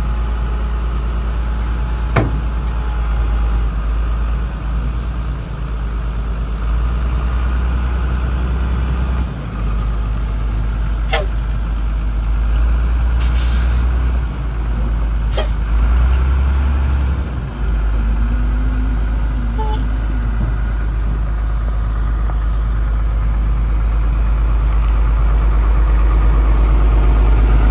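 Dump truck engine running steadily, a deep low rumble, while its bed is raised to dump a load. A few sharp clicks and a brief hiss about thirteen seconds in, and the engine grows louder near the end.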